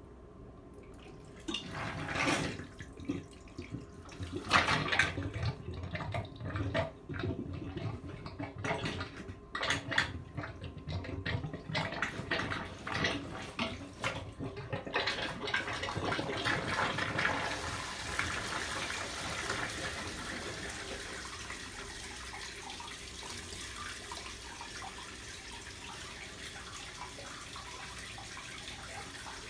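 A cat licking the wet floor of a bathtub: irregular wet lapping and smacking sounds for the first half, then a steady water hiss from about halfway that slowly fades.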